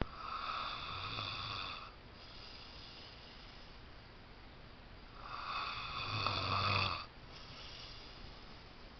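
A person snoring loudly: two long snores about five seconds apart, each followed by a quieter breath.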